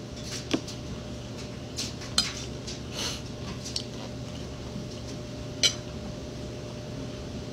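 A metal fork clinking and scraping against a plate while someone eats. There are a few sharp clinks, the loudest near the end, over a steady low hum.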